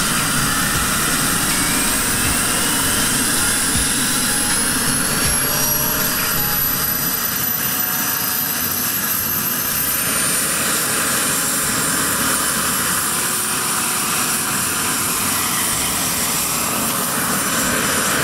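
Large RC scale model SA 315 Lama helicopter running on the ground with its rotor turning, its engine and rotor giving a steady noise. A thin whine rises steadily in pitch over the first several seconds as it spools up, then holds level.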